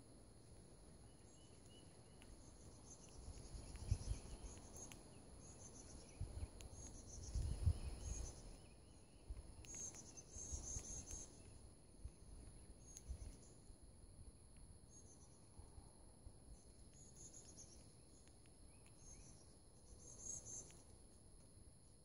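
Faint, steady high-pitched insect trilling, with short high chirps from small birds recurring every second or two. A couple of low thuds come about four and seven seconds in.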